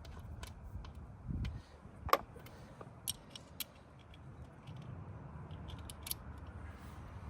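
Hand tools clicking and clinking against metal while bolts are tightened with a 5/32 hex bit and wrench, with one sharp ringing clink about two seconds in and a few lighter clicks later.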